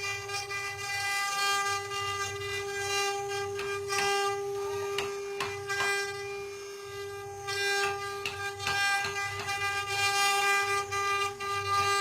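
CNC wood-carving router running: a steady, unbroken whine from the spindle, with scattered clicks and scratchy cutting noise.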